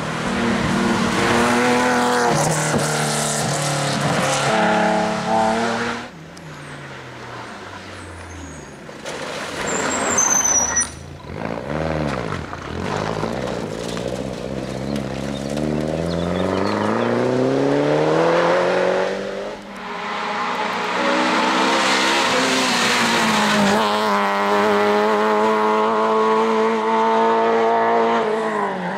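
Rally cars at full throttle, one after another, engines revving hard and stepping through gear changes. The first is a Porsche 911. In the middle a quieter stretch, where the engine note dips and then climbs again.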